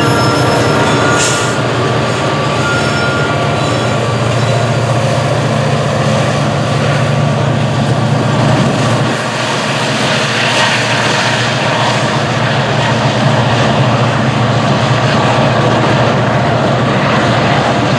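A diesel freight train passing close by: the Union Pacific SD70ACe and CSX SD40-2 locomotives run by with a steady loud rumble, followed by covered hopper cars rolling past with continuous wheel-on-rail noise.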